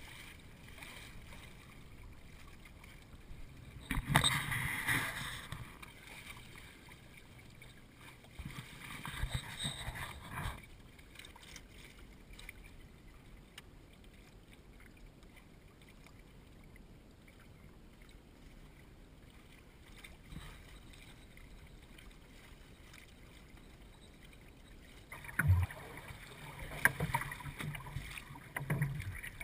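Water rushing and splashing along the hull and outrigger float of a Eureka sailing canoe under way in a fresh breeze: a steady wash with louder surges of splashing about four seconds in, again near ten seconds, and repeatedly near the end, with a few sharp knocks among them.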